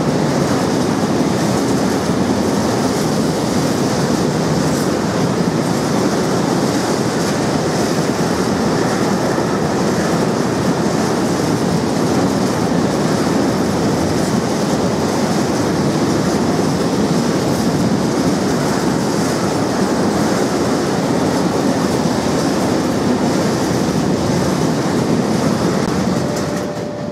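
Freight train of covered boxcars and open wagons rolling through at speed: a loud, steady rumble and rattle of wheels on rail, which drops away near the end as the last wagons pass.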